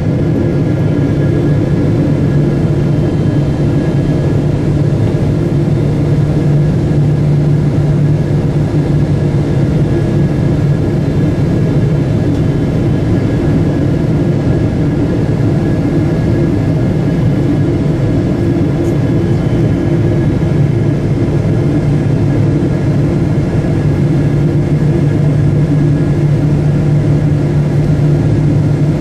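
Cabin noise inside a Boeing 777-300ER on approach to land: the steady drone of its GE90 jet engines and rushing airflow, with a strong low hum and a few faint steady higher tones. The low hum eases a little in the middle and comes back stronger near the end.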